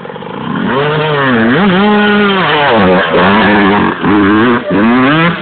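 Yamaha YZ250 two-stroke dirt bike engine revving hard, its pitch climbing and dropping several times as the rider works the throttle. It grows louder about half a second in.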